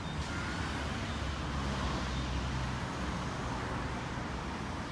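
Steady outdoor ambient noise: a low rumble under an even hiss, with no single sound standing out.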